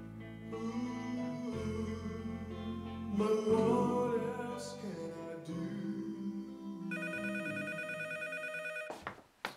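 Soft background music, then about seven seconds in a landline telephone bell rings for about two seconds, and the music stops with it.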